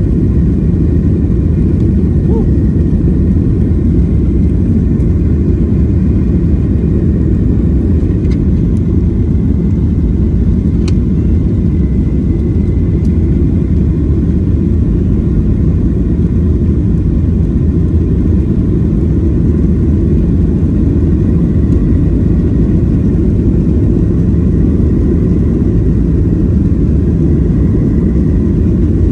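Steady low rumble of an airliner's jet engines and wheels heard from inside the cabin as the plane moves along the ground, with a faint steady whine above it.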